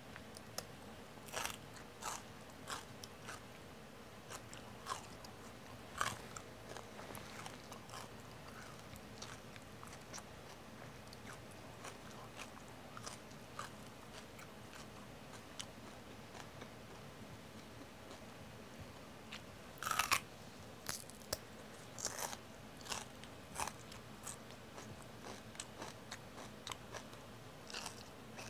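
Raw celery stick spread with peanut butter being chewed, a run of irregular crisp crunches. About 20 seconds in comes a loud fresh bite, followed by a quicker flurry of crunching.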